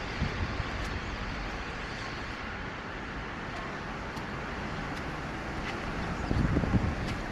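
Steady hiss of light rain and traffic on wet city streets, with faint ticks of drops; a short low rumble near the end.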